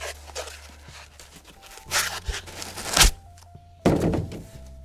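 Packaging being handled during unboxing: a foam insert and a switch in a plastic sleeve are lifted and moved, giving three short rustling swishes and thuds about two, three and four seconds in, over a low steady hum.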